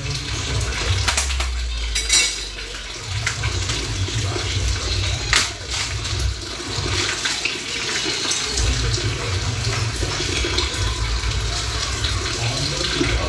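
Water running steadily from a tap, with a few sharp clicks and knocks of things being handled.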